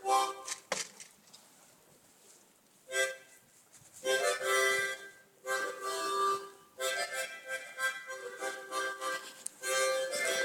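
Harmonica playing chords in short phrases. A sharp click comes just under a second in, followed by a pause of about two seconds before the playing resumes and runs on in longer phrases.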